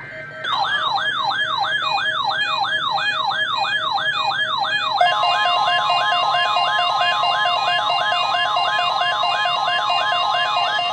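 Electronic alert tones on a NOAA Weather Radio weekly test broadcast. A falling siren-like sweep repeats about three times a second, and about halfway through a steady high tone joins it.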